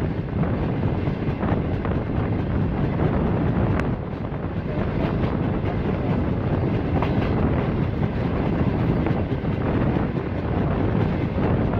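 Passenger train running at speed, heard from an open coach window: a steady rumble of wheels on rail with air rushing past the microphone, and faint occasional clicks from the track.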